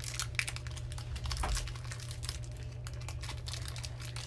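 Foil wrapper of a Pokémon trading-card booster pack crinkling as it is handled and pulled open by hand, a quick run of small crackles.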